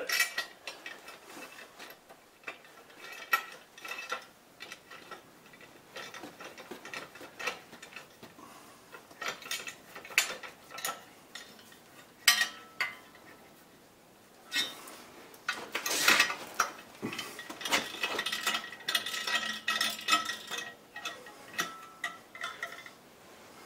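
Allen key working a socket-head screw into a steel angle-iron guard at the base of a milling machine: scattered metallic clicks and clinks, busiest in the second half, with some brief ringing of metal.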